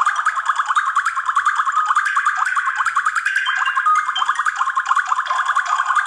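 A ringtone melody playing from the Sharp Aquos wish2 (SH-51C) smartphone's loudspeaker: a fast run of short electronic notes, about seven a second, shifting in pitch.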